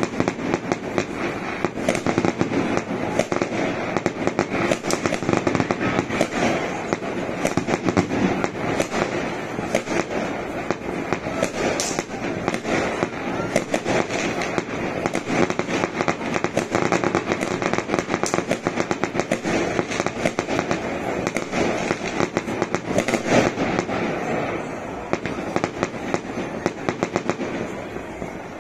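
New Year's fireworks display going off without a break: a dense run of bangs and crackles, several a second.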